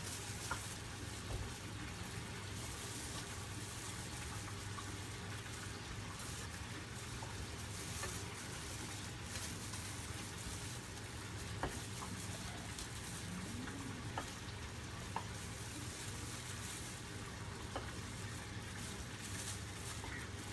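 Tuna pieces frying in a pan of oil, a steady sizzle and crackle, with a few light clicks scattered through it.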